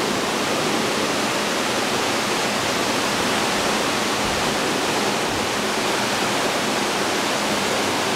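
Water rushing steadily down a water slide's run-out channel, an even hiss that does not change.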